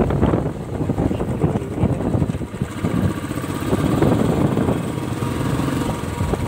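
Motorcycle engine running steadily while riding, heard from on the bike itself.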